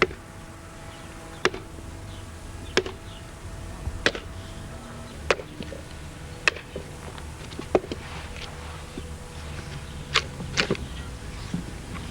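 A wooden mallet striking the head of a heavy splitting axe driven into a log end: a steady series of sharp blows, about one every second and a quarter, as the trunk is split along its grain.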